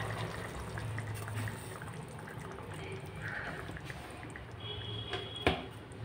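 Potato curry simmering faintly in a steel pot on a gas burner, a low steady bubbling. A single sharp click sounds near the end.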